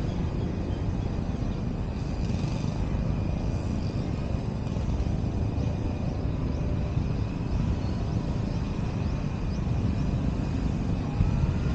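Steady low rumble of distant city traffic, with a few faint high thin tones held steady above it.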